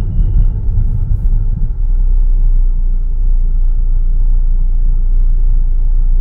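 Proton Gen2 driving, a steady low rumble of engine and road noise heard inside the cabin. A thin high whistle, the unexplained noise the owner is tracking, stops about half a second in.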